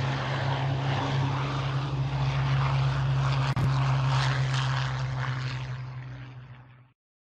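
A formation of Spitfire and Hurricane fighters flying overhead, their piston engines droning steadily together. There is a brief click about halfway, and the sound then fades out over the last couple of seconds.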